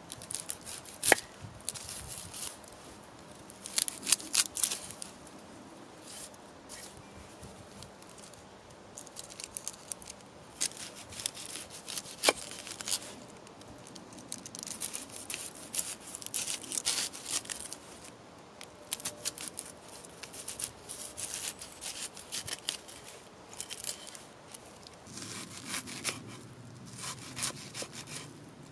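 Knife cutting and peeling an onion on a wooden cutting board: crisp crunching and papery tearing in irregular bursts, with a few sharp knocks of the blade on the board.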